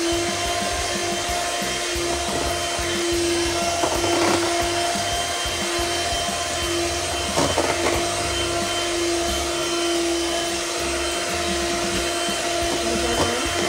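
Electric hand mixer running steadily with a constant motor whine, its beaters churning thick cake batter in a stainless steel bowl. A couple of brief knocks come through, about four seconds in and again a few seconds later.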